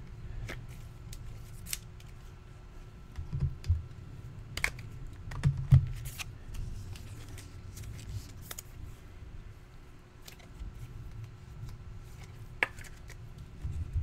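Trading cards and their packaging being handled: scattered sharp clicks and taps, with a few soft thumps about three and a half and six seconds in, over a faint steady hum.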